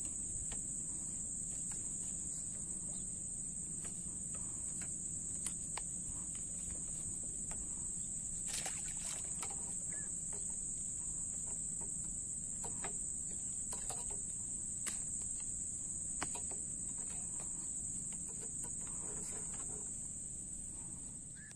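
Steady, high-pitched drone of insects, with a few faint clicks scattered through.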